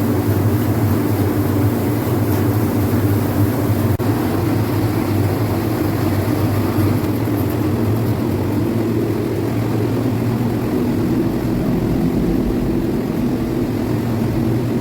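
Machinery of an automatic French fries processing line running, a loud, steady mechanical hum with a constant low drone and a second, higher steady tone.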